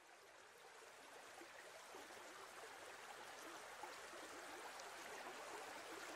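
A shallow stream running, a steady faint babble of water that fades in gradually.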